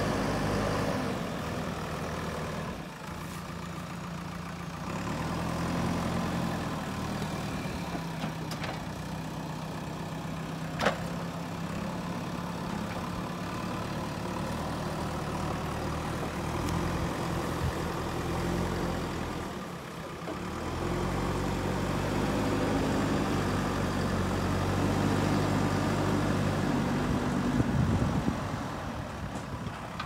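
JCB 3DX backhoe loader's four-cylinder diesel engine working under load as the front bucket pushes and levels soil, its revs dropping and climbing again a few seconds in and once more past the middle. A single sharp click about eleven seconds in.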